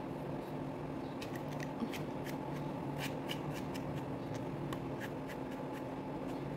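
Hands working and combing out fluffy brushed wool-yarn fur on a crocheted toy dog: light, irregular scratchy ticks and rustles from about a second in, over a steady low hum.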